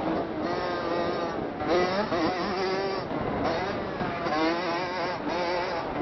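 Motocross dirt bike engine being ridden, its pitch rising and falling repeatedly as the throttle is worked, with a wavering note over rough ground and wind noise on the microphone.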